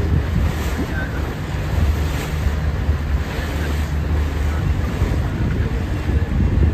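Wind buffeting the microphone over open water: a steady low rumble with a hiss of wind and water over it.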